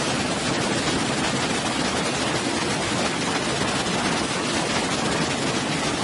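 Steady, unbroken rush of a waterfall pouring into a pool.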